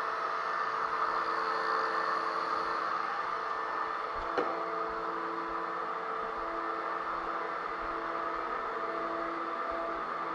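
Power drywall sander running steadily on joint compound, a constant motor whir with hiss, and one sharp click about four and a half seconds in.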